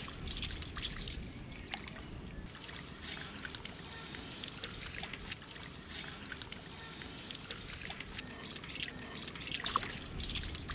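Bare feet splashing and sloshing through shallow, ankle-deep floodwater, step after step in an uneven rhythm, over a low wind rumble on the microphone.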